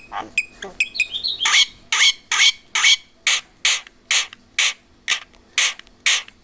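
Javan myna giving a run of harsh, rasping calls, about two a second, after a few short clicks and whistled notes in the first second and a half.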